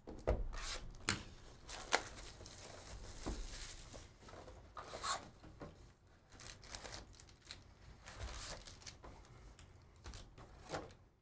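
Cardboard Panini Prizm hobby box being handled and opened, and its foil-wrapped card packs slid out and stacked on the table, making irregular rustling, crinkling and light taps.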